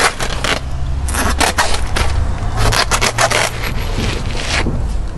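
Scraping and rustling in short spells as a sack of industrial salt is emptied and shaken out into an earthing pit, over a low steady rumble.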